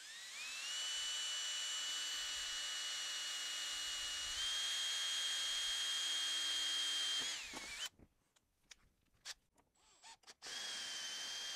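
Cordless drill drilling through a thin metal plate. Its motor whine spins up, runs steadily for about seven seconds with a slight rise in pitch partway through, then spins down. A few light clicks follow, then the drill runs briefly again near the end.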